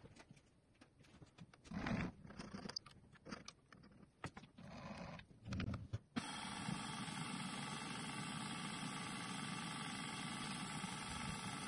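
A few light clunks and scrapes of handling, then about six seconds in the milling machine's spindle motor starts and runs steadily, with a small drill brought down to the end of a thin metal rod held in the vise.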